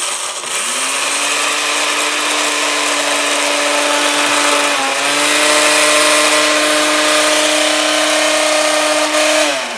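Countertop blender on its crumb setting, grinding graham crackers into crumbs. The motor spins up in the first second, runs steadily with a brief falter about halfway, then winds down with falling pitch near the end.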